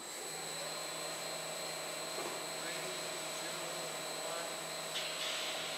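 Industrial powder blender running: a steady motor and drive drone with a constant whine over the noise of its agitators turning through dry powder.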